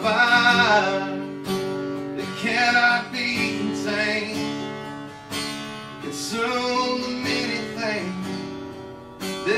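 Man singing a worship song over strummed acoustic guitar, holding long sung notes.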